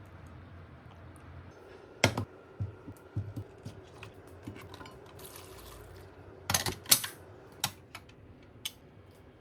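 Kitchenware clattering during cooking: a series of sharp clinks and knocks of utensils against pots and dishes, loudest about two seconds in and again around seven seconds in, with a short hiss near the middle.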